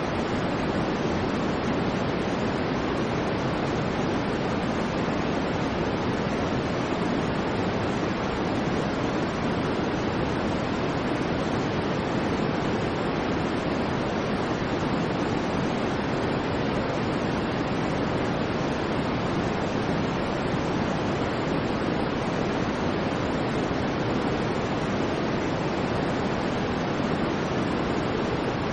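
Steady electronic noise track of the kind sold as white noise: an even, unchanging hiss, fuller in the low-middle range than at the top.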